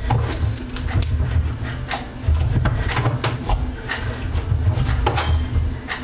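Slime being handled and pressed into a plastic jar: a string of small sticky clicks and pops over a low rumble of hands working close to the microphone.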